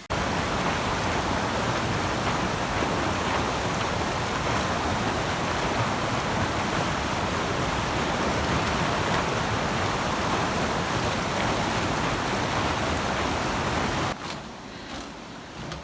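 Stubbs Falls on the Little East River, water rushing over the falls in a steady, even wash of noise that cuts off abruptly near the end.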